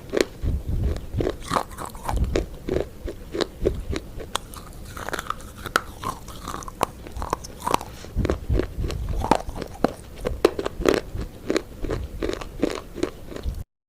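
Close-up crunchy chewing and biting, a rapid run of sharp crunches several times a second, cutting off abruptly near the end.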